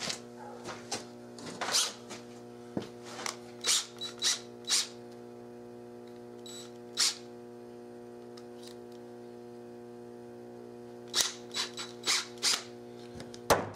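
Scattered clicks and knocks from a DeWalt cordless drill being handled as a drill bit is fitted into its chuck, over a steady low hum. The clicks come in the first few seconds and again in a quick cluster near the end.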